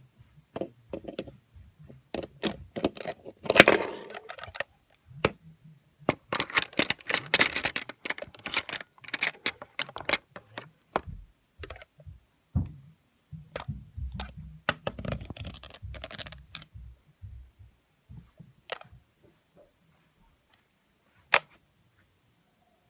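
Irregular clicks, light knocks and rustling from a hand puppet and a plastic toy truck being handled, with a few denser spells of rustling and a quiet stretch near the end broken by one sharp click.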